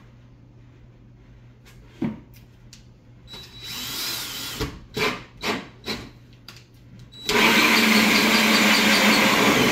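Cordless DeWalt drill driving a 6-inch hole saw inside a plastic dust bowl against ceiling drywall: about four short trigger bursts as the saw is started, then from about seven seconds in the drill runs loudly and steadily as the hole saw cuts the drywall.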